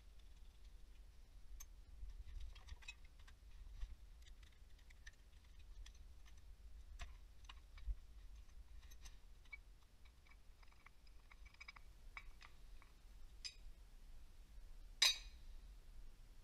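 Faint scattered clicks and light metal clinks of a wrench and bolts being worked while parts are unbolted from a diesel engine, with one louder metal clank near the end.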